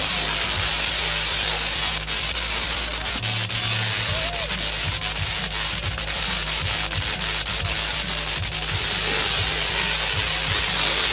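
A pair of large Tesla coils firing, their arcs making a loud crackling buzz over low buzzing tones. From about two seconds in the discharge breaks into a rapid stutter of sharp cracks, then settles back into a steady hiss near the end.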